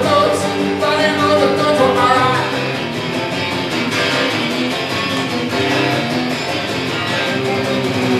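Acoustic guitar strummed hard and steadily, an instrumental stretch between sung lines of a solo rock song.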